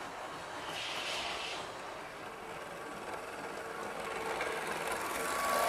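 Model Pendolino train running along the layout track: a steady motor hum and the rattle of its wheels on the rails, growing louder as it approaches, with a faint whine coming in near the end.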